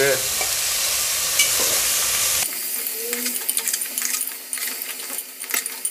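Goat trotters sizzling as they roast in hot oil in a pressure cooker. About halfway through, a metal spoon starts stirring them, clicking and scraping against the pot.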